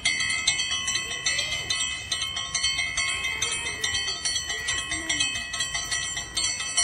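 Temple bell rung rapidly and continuously, its clapper striking several times a second so the bright metallic ringing never dies away; it starts suddenly.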